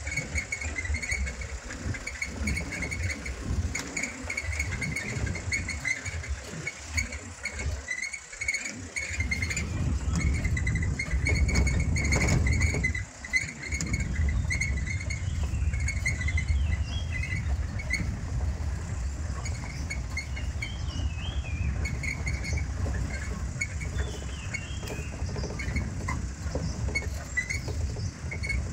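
Steady low rumble of a vehicle driving along a forest dirt track, with birds calling over it: short repeated notes throughout and a few rising-and-falling phrases about two-thirds of the way through.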